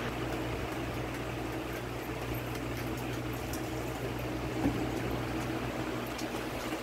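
Raccoons eating dry kibble from a metal pan, with faint scattered crunching and clicking over a steady low hum. A single small knock comes near the end.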